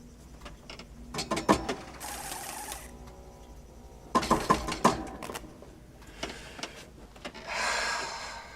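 Mechanical clicking and clanking in two quick clusters, with two short bursts of hiss, the second longer, near the end.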